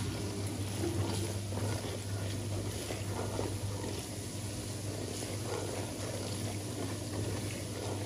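Chopped onions and tomato sizzling and bubbling in oil in a pot as they are stirred with a wooden spoon, over a steady low hum.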